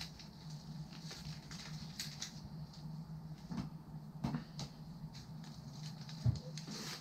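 Faint crackling and rustling of Lizard Skins polymer bat grip tape being wound onto a softball bat handle, its adhesive backing peeling away as it goes, with a soft bump about six seconds in.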